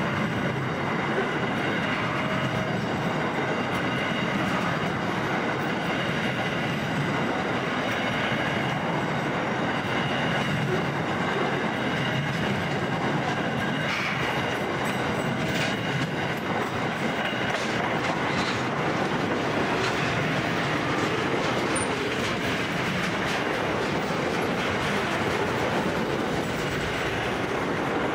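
Container wagons of a long freight train rolling past at close range: a steady rumble and clatter of steel wheels on the rails, with thin steady high tones over it.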